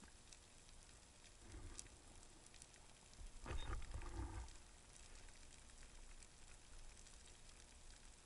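Faint underwater ambience: a steady fine crackling and ticking, with a muffled low rumble lasting about a second starting about three and a half seconds in.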